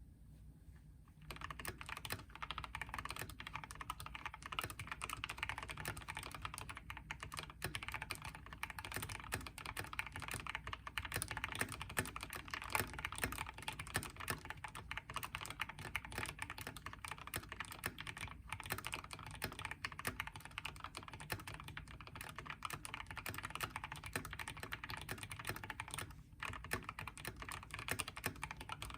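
Fast, continuous typing on an Epomaker TH66 mechanical keyboard with lubed and filmed Gateron Pro Yellow linear switches and a tape mod. The keystrokes start about a second in and run as a dense stream of clicks.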